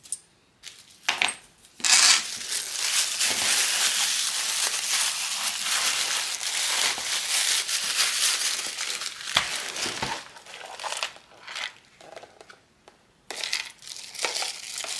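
Clear plastic packaging bags crinkling and rustling steadily for several seconds as they are handled and opened, then in scattered short bursts, with small clinks of the metal bag hardware inside.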